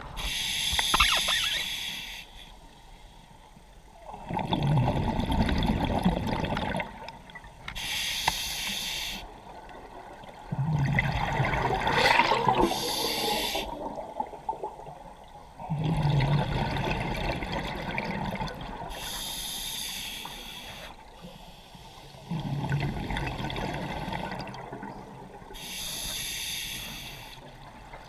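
A scuba diver breathing through a regulator underwater. About four breath cycles come roughly seven seconds apart, each a sharp hissing inhale followed by a longer rumbling, bubbling exhale.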